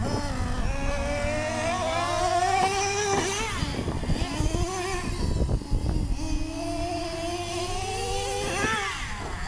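Small two-stroke nitro engines of a Traxxas T-Maxx and a Traxxas Revo RC monster truck racing: a high engine whine that climbs in pitch under throttle, drops off about three and a half seconds in and again near the end, and climbs again in between.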